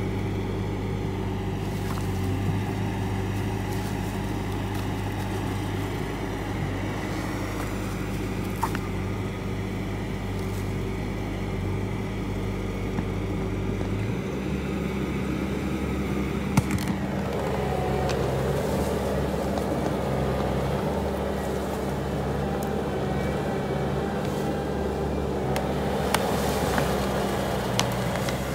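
Bobcat skid steer's diesel engine running steadily as it pulls a felled log on a tow strap. About 14 seconds in the engine note changes, and from about 17 seconds it sounds fuller and a little louder.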